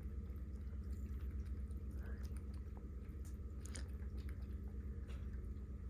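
Pet water fountain running with a steady low hum, with a few faint, scattered clicks and soft wet sounds.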